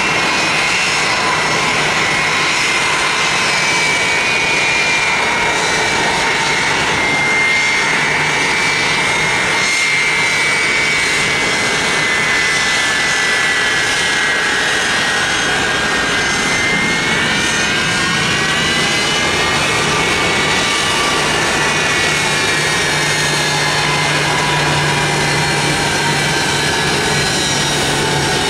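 Boeing 757 jet engines whining steadily at taxi power, with a low hum underneath. The whine rises a little about two-thirds of the way through and then settles.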